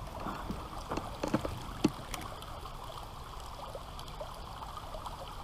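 Creek water running and trickling steadily, with a few brief sharp sounds in the first two seconds.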